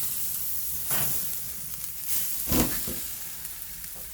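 Freshly seared tomahawk steak sizzling with a steady hiss, with two louder crackles about a second in and near the middle.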